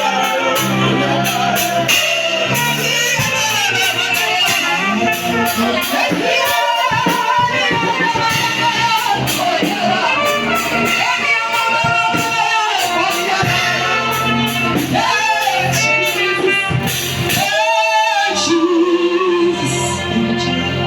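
Live gospel worship music: a woman singing over a band.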